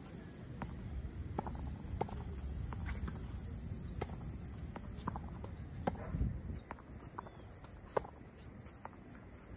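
Tennis balls being struck with rackets and bouncing on a hard court in a back-and-forth drill: sharp pops and thuds about once a second, over a low rumble and a steady high insect hum.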